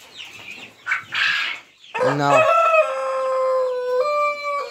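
Rooster crowing: one long crow starting about two seconds in, held on one pitch and stepping up slightly near the end, with hens clucking around it.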